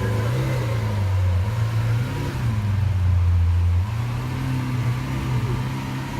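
Car engine running at low revs close by, its low note shifting up and down a little a few times.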